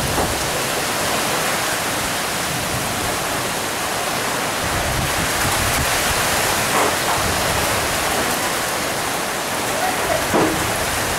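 Heavy rain mixed with hail pouring down in a dense, steady hiss.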